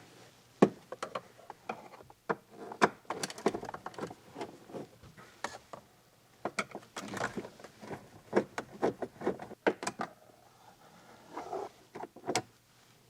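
Irregular clicks and taps of a Phillips screwdriver turning out the two screws that hold the dash instrument cluster, in two spells of activity with a few more clicks near the end.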